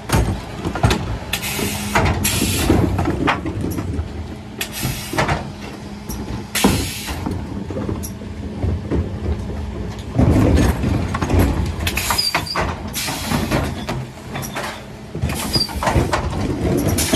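Mercedes Econic refuse truck with a Faun Variopress body and Zoeller bin lifter at work: a steady hum from the running engine and hydraulics, under repeated bangs and rattles as wheelie bins are hooked on, lifted and tipped into the hopper. The loudest, densest clatter comes about ten seconds in.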